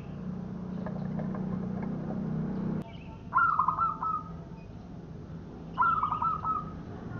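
Zebra dove (perkutut) calling twice, each call a quick stuttering run of high coo notes lasting under a second, the two about two and a half seconds apart. A low steady hum in the first part cuts off abruptly just before the first call.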